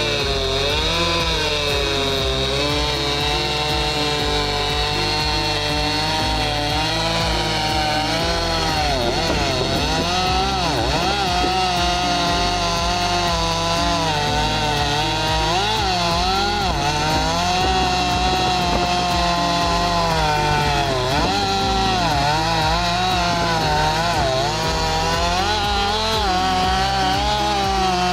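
Stihl MS 261 C two-stroke chainsaw running at high revs while cutting through a log, its engine pitch sagging and recovering again and again as the chain loads up in the wood, dipping deepest about ten seconds in.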